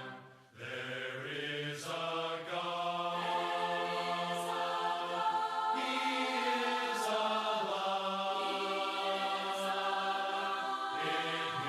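Church congregation singing a cappella in harmony, holding long sustained chords, with a short break about half a second in.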